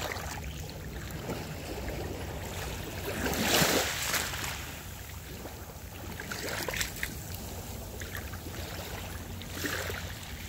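Small waves washing in over rocks and sand at the water's edge, one swelling louder about three and a half seconds in and another near the end, over a steady low wind rumble.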